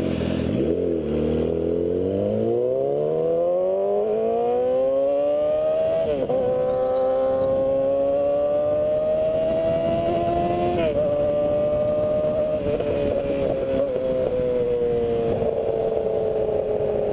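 Yamaha YZF-R6 inline-four sport bike engine under way. Its note rises steadily as the bike accelerates over the first six seconds, holds fairly steady, then eases down slightly near the end, with wind noise throughout.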